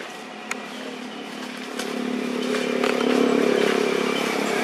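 A motor engine running steadily, growing louder from about two seconds in. A single sharp click about half a second in.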